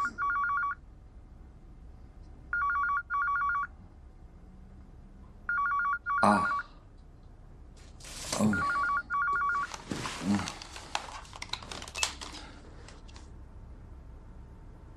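Telephone ringing in the British double-ring pattern, four pairs of rings about three seconds apart. A rustling, knocking noise sets in about halfway through.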